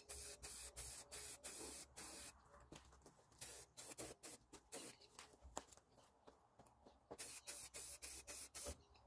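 Aerosol spray-paint can hissing in short spurts as paint is sprayed onto a plastic bucket lid, with pauses about two and five seconds in.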